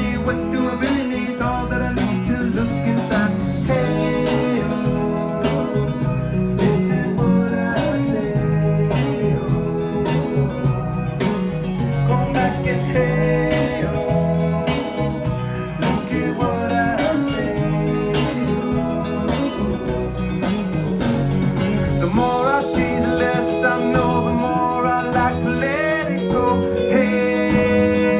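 Recorded song with a blues feel, led by guitar over a steady rhythm section, with some sliding notes about three-quarters of the way through.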